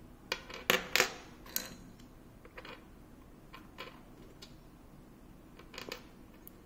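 Scattered metallic clicks and clinks from a monitor mount's tilt joint and VESA plate being handled and tilted by hand, with the loudest pair about a second in and a few lighter clicks after.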